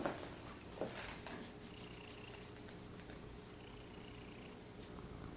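Tabby cat purring steadily while being stroked on the head, with a couple of brief sounds in the first second.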